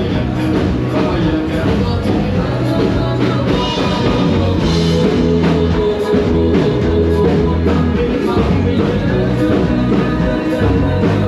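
Rock music with a singer, loud and steady, with a driving bass line.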